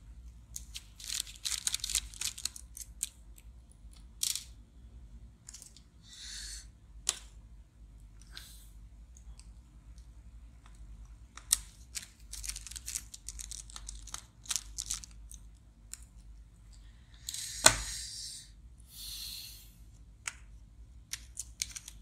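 A small hand screwdriver working screws out of a laptop's USB/IO daughterboard, with scattered clicks and short scraping rustles of metal and plastic being handled. A sharp click stands out about three-quarters of the way through.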